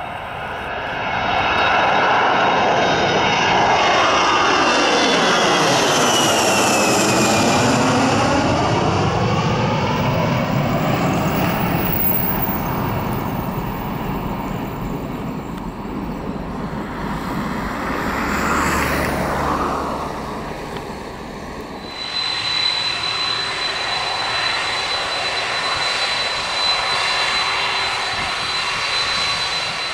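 Airbus A320-family jet airliner taking off and climbing overhead: the engines' thrust swells loud, a high whistle slides down in pitch as it passes, and the sound slowly fades. About 22 s in it cuts to a Boeing 767's engines running at idle as it taxis, a steady high whine over a low rumble.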